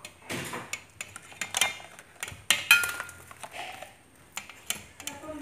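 A plastic spoon and boiled eggs knocking and clinking against a wire-mesh strainer basket and a steel pot: a string of irregular clicks with a couple of short metallic rings near the middle.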